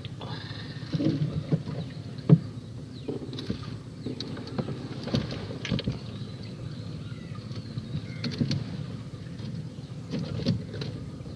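Fish trap (kuruthi) being hauled out of shallow, weedy water beside a small boat: water splashing and running off the mesh, with irregular knocks of the trap against the boat. The sharpest knock comes about two seconds in.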